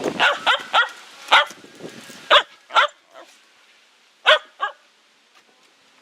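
Shetland sheepdog puppy barking: about eight short barks in the first five seconds, some in quick pairs.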